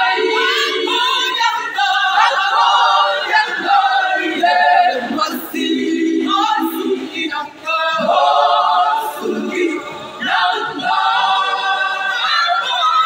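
Women's choir singing a cappella.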